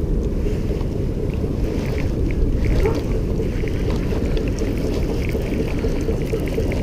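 Steady low rumble of wind buffeting the camera microphone, with faint ticking from a baitcasting reel being cranked.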